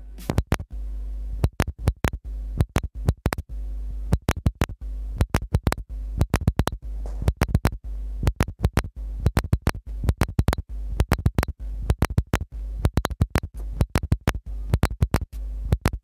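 Loud, irregular sharp clicks and crackles, many per second in uneven clusters, over a steady low hum.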